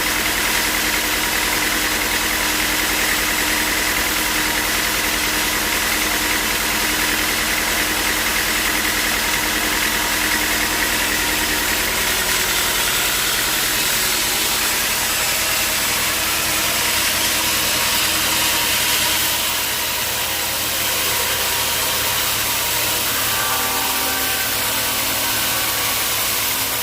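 Sawmill machinery running steadily, an engine-like hum under a high whine that fades over the first half, with a slight drop in level about 20 seconds in.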